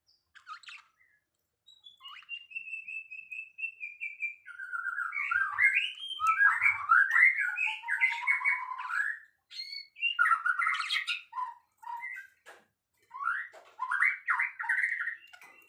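A songbird singing. It starts with a long, slightly falling whistle, then runs into fast, varied warbling phrases with short pauses between them.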